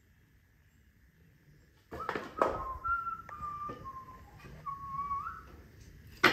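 A person whistling a few held notes of a tune, stepping up and down in pitch, mixed with several sharp knocks; the loudest knock comes right at the end.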